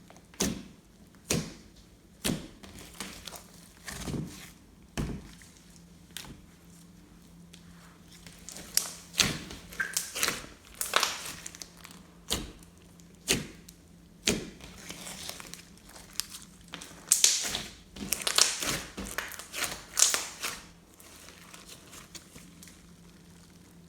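Slime being kneaded and squished by hand: irregular sticky clicks and pops, turning into a denser run of wet crackles and squelches in the second half.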